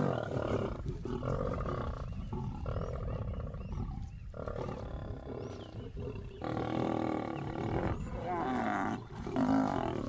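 Lions snarling and growling at a kill in a run of harsh bursts about a second each, with short breaks between. It is a squabble over feeding, with the males driving a feeding lioness off the carcass.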